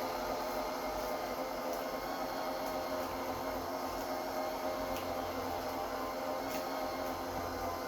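Motor of an Ectaco E7 cordless wet mop running steadily, a constant hum with a few faint ticks.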